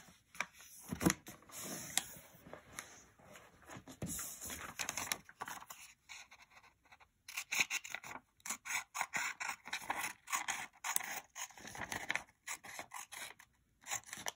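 A sheet of folded paper is rubbed and scraped as it is creased by hand. After a short pause around the middle, scissors cut through the doubled paper in a quick run of short snips.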